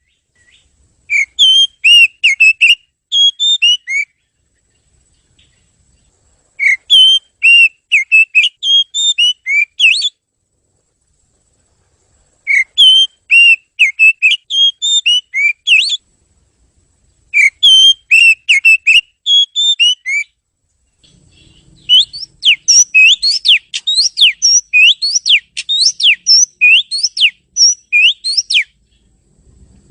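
Oriental magpie-robin (kacer) singing in full voice: phrases of quick, clear whistled notes, each a few seconds long with short pauses between, then from about two-thirds of the way in a longer run of repeated rising whistles, about two a second.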